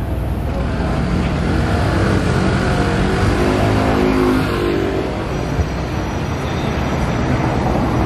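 City street traffic: a motor vehicle's engine passing close by, loudest about two to five seconds in, over steady road noise, with a short knock near the middle.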